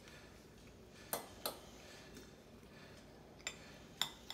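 Metal fork clicking against a ceramic bowl while eating: two light clicks about a second in, then three more near the end.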